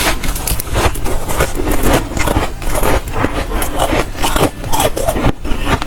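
Close-miked crunching of dry, soft freezer frost being bitten and chewed, a quick run of crisp crunches.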